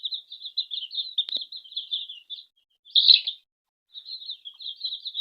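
Baby chicks peeping in quick, overlapping high chirps, with one louder peep about three seconds in followed by a brief pause before the peeping resumes.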